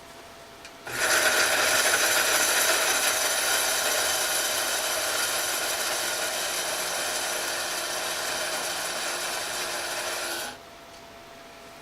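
Chulux electric blade coffee grinder running and grinding dried cooked pork. It starts about a second in, runs steadily for nine or ten seconds while easing off slightly in loudness, and stops suddenly.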